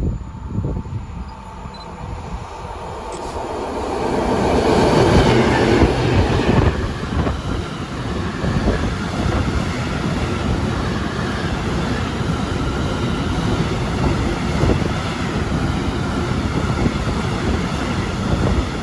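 A train passing close by with the steady running noise of its wheels on the rails. It builds over the first few seconds, is loudest about five seconds in, and then carries on evenly.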